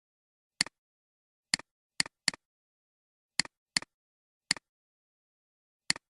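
A series of eight sharp clicks at uneven intervals, each a quick double tick, with complete silence between them.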